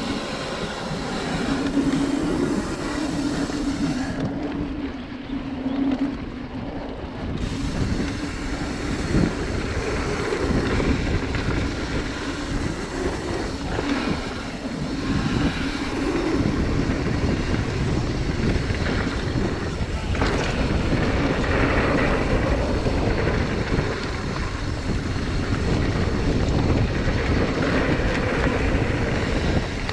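Mountain bike riding down a dirt singletrack, heard from a chest-mounted camera: a steady rush of wind and tyre noise, broken by frequent small rattles and knocks from the bike.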